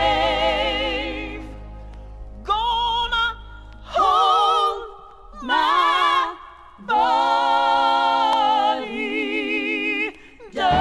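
Southern gospel vocal group singing with vibrato. A held chord fades out, then the voices sing short drawn-out phrases with brief pauses between them, the backing band dropping away after about four seconds.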